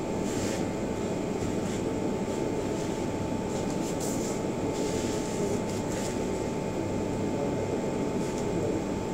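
Steady mechanical background hum with a constant thin whine running through it. A few brief swishes of a rattan stick cutting through the air come and go.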